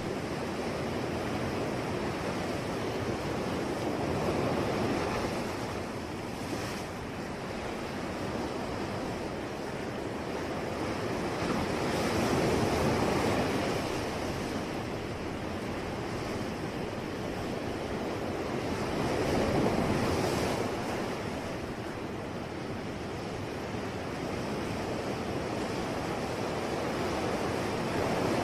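Ocean waves breaking and washing ashore, the surf swelling and easing every several seconds, with some wind.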